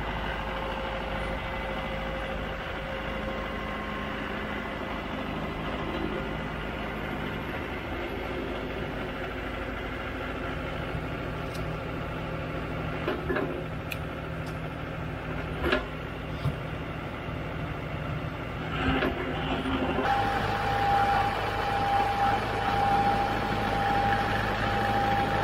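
Mahindra 4540 diesel tractor engine running steadily, with a few sharp knocks midway. About twenty seconds in the sound changes abruptly and a steady whine from the hydraulics joins as the front loader lifts the forks high.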